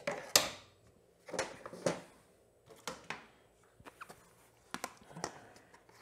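Knocks and light clicks of a plastic motorcycle chin cowl being handled and fitted up under the engine: a sharp knock just after the start, then several softer knocks and clicks.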